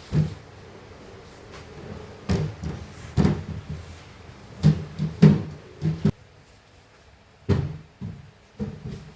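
Household objects being handled: a string of separate knocks and clunks, some in quick pairs, as things are picked up, set down or shut. A faint steady background hiss stops suddenly about six seconds in.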